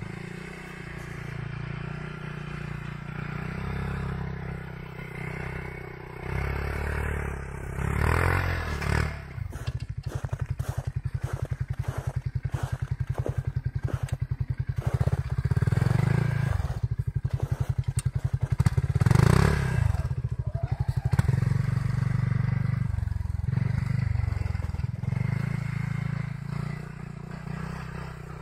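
Polaris Ranger 570 UTV's single-cylinder engine running and pulling through snow, heard from a distance. A run of rapid clattering knocks comes through in the middle.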